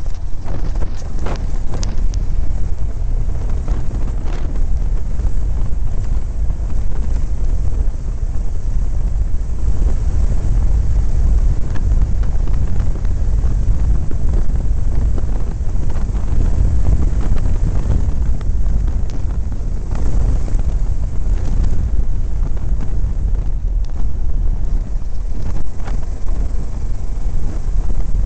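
Motorcycle riding on a gravel road, heard as heavy, steady wind rumble on the microphone over the noise of the bike. A few sharp ticks come in the first couple of seconds.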